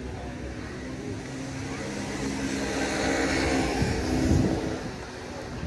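A car driving past: engine and tyre noise swell to their loudest about four seconds in, the engine note dropping as it passes, then fade.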